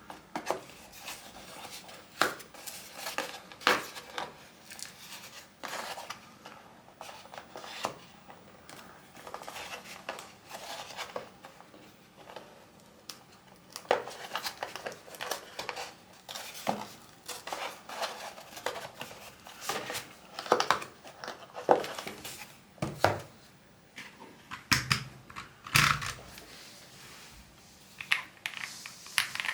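Hands unpacking a mechanical keyboard: packaging crinkling and tearing, with irregular clicks and knocks of hard parts being handled and set down, and a few heavier thumps near the end.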